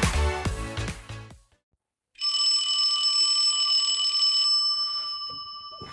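Intro music with a steady beat ends about a second and a half in; after a short silence, a steady, high-pitched electronic alarm tone rings and slowly fades near the end.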